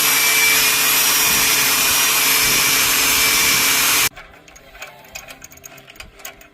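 A power tool running steadily at full speed, a loud hiss over a low motor hum, cutting off suddenly about four seconds in. Light clicks and taps follow.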